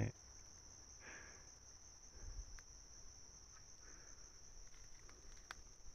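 Steady high-pitched insect trilling, with a few faint clicks.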